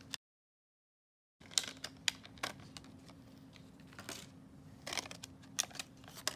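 Clear plastic blister packaging clicking and crinkling in the hands as two laptop RAM modules are taken out of it: a scatter of short, sharp clicks and rustles over a faint steady hum, after about a second of dead silence near the start.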